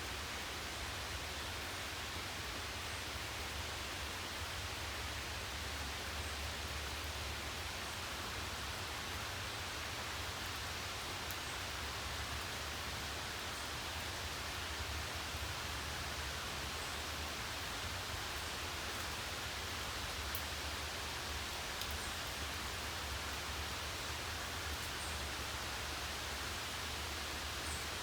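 Steady rain: an even, unbroken hiss with a low rumble underneath and a few faint ticks of drops.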